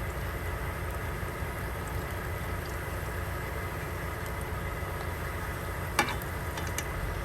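Steady low hum of an idling truck engine with a faint frying sizzle over it, and one sharp click about six seconds in.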